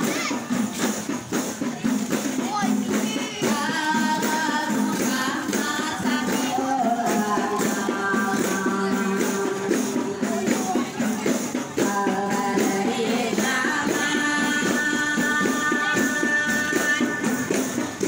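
Rebana frame drums beaten in a steady rhythm while voices sing along, holding long notes.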